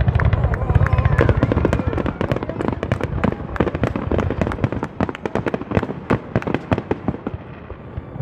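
Aerial fireworks display: shells bursting and crackling in rapid succession, a dense run of sharp pops over deep booms in the first couple of seconds, thinning to sparser crackles after about five seconds.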